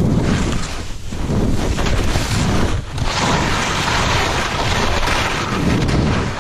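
Wind rushing over the helmet-camera microphone and skis scraping across hard, chopped snow on a fast descent, the noise dipping briefly between turns. From about three seconds in the scrape turns into a longer, hissier slide of the edges.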